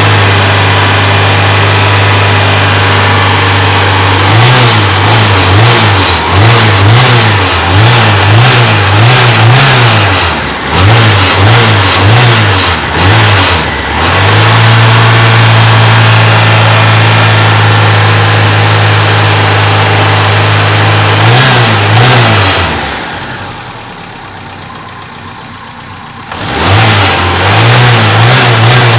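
A 1991 Fiat Uno 1.3's four-cylinder engine, warming up from cold, is blipped up and down in a quick run of throttle revs. It is then held steady for several seconds and drops much quieter for a few seconds before the revving starts again. This is the cold-running stage in which a noise comes from the gearbox, a noise that dies away as the engine warms.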